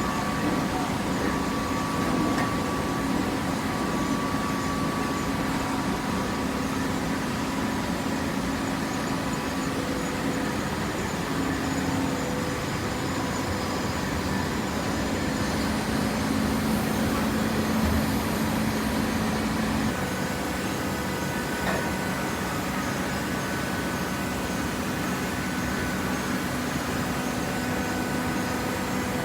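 Hydraulic paper and cardboard baler running, its motor and hydraulic pump giving a steady mechanical hum. The held tones shift about twenty seconds in.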